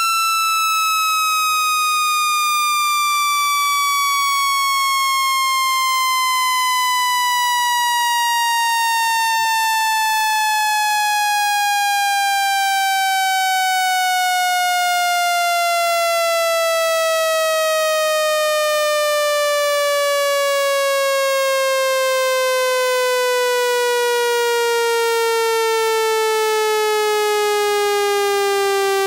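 Synthetic speaker-cleaning tone, a water-eject sweep played to shake trapped water out of a phone speaker. It is a single buzzy electronic tone at a steady loudness, sliding slowly and evenly downward in pitch by well over an octave.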